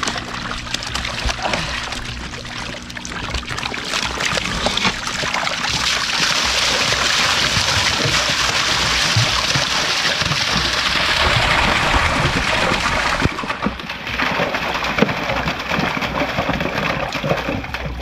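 Water and a mass of live magur catfish splashing as they are tipped from a styrofoam box into a concrete tank. A loud rushing splash starts about six seconds in and eases about thirteen seconds in to lighter splashing and sloshing.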